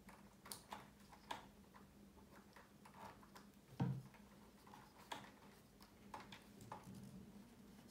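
Faint, irregular small clicks and ticks of fingers handling wires and shrink tubing at an amplifier's speaker-terminal wiring, with one louder knock about four seconds in.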